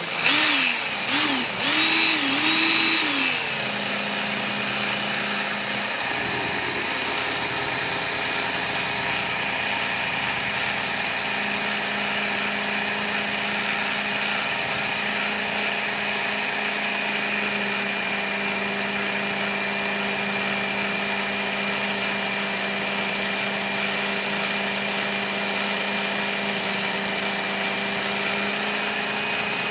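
Work Sharp Ken Onion Edition belt sharpener's motor switched on and running at medium speed while a scissor blade is sharpened on the belt. The pitch wavers a few times in the first three seconds, then it settles into a steady whine.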